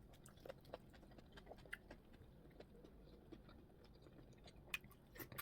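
Faint, wet chewing of plantain fufu with okra soup, with scattered small mouth clicks and a couple of sharper clicks near the end.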